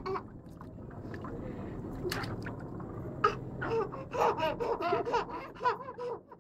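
A high-pitched human voice making short sounds that bend up and down, mostly in the second half.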